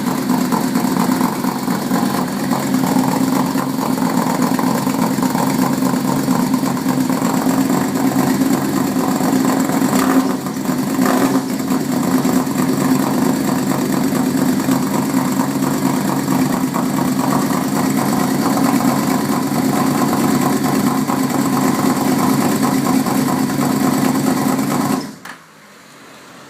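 Yamaha V-Max V4 engine idling steadily through Onishi header pipes and a MotoGP-style conical silencer, with a brief dip about ten seconds in. It cuts off abruptly near the end.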